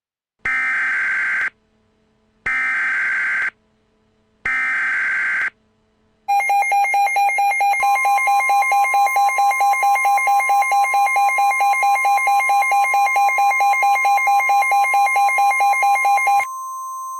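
Emergency Alert System activation. Three one-second bursts of SAME digital header data screech about a second apart, then a rapidly pulsing alert tone starts, and a steady warning alarm tone joins it. Shortly before the end the pulsing stops, leaving the steady tone.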